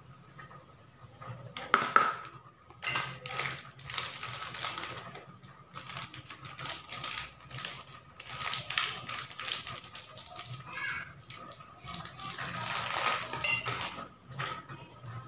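A metal spoon clinks against a plastic bowl and a foil powdered-milk sachet crinkles as it is handled and folded. There is a sharp clink about two seconds in, then irregular crinkling rustles, loudest near the end.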